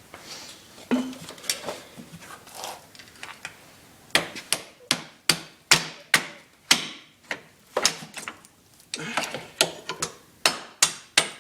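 Hammer blows on a long screwdriver used as a drift, driving the swing arm pivot bolt out of an ATV frame: after a few quieter clanks, a run of sharp metal strikes about two a second starts about four seconds in.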